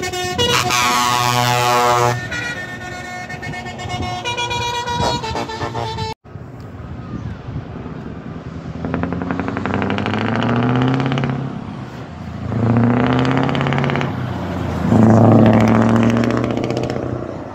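Trucks' air horns blowing as they pass, several steady notes sounding together for the first five seconds or so. After a break, a truck tractor unit's diesel engine accelerates hard through the gears, the pitch climbing and dropping back at each shift, loudest near the end.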